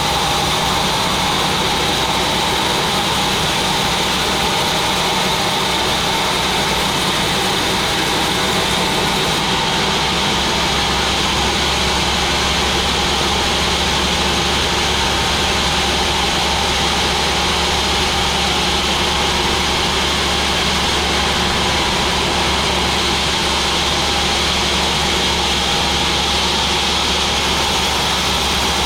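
Large sawmill machine running steadily, a continuous, unchanging mechanical noise with a low rumble and a higher whine.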